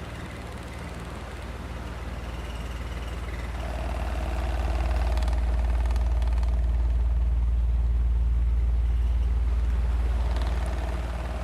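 Ventilation shaft humming: a steady deep hum with faint higher tones over it, swelling louder from about four seconds in and easing off again near the end.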